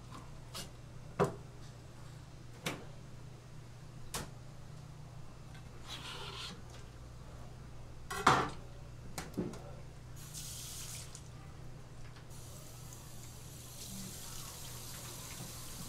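Sharp knocks of a knife and hands on a plastic cutting board, several times, the loudest about eight seconds in, over a steady low hum. From about twelve seconds in, water sprays steadily from a tap.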